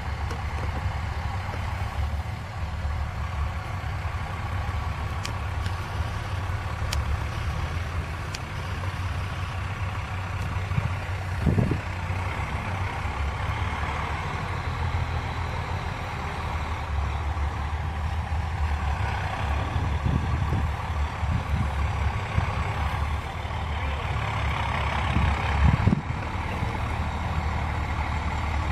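Truck engine running steadily with a low drone. Two short knocks cut through it, one about midway and one near the end.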